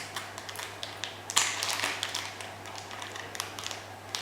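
Plastic packaging being handled and opened: scattered crinkles and sharp clicks, with a louder rustle about a second and a half in, over a low steady hum.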